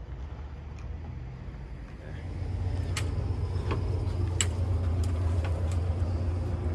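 A steady low machine hum that grows louder about two and a half seconds in. Over it come footsteps, sharp clicks about every two-thirds of a second, and the clack of a glass door's metal push bar as the door is pushed open.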